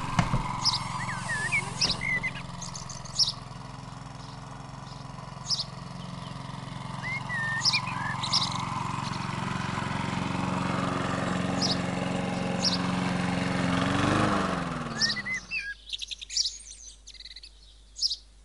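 Birds chirping in short, scattered calls over a steady low hum. The hum cuts off about fifteen seconds in, leaving a few sparse chirps.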